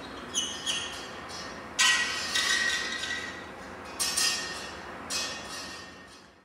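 Bent metal wire stylus of a wind-driven kinetic sculpture scraping and skipping across a concrete floor: a run of scrapes with a ringing tone, the loudest about two seconds in, then fading away near the end.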